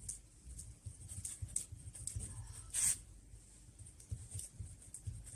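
Pen scratching across paper in short writing strokes, with one louder stroke a little under three seconds in.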